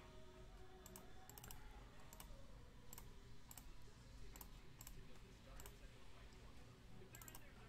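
Faint, irregular clicks of a computer mouse and keyboard, about one or two a second, over quiet room tone.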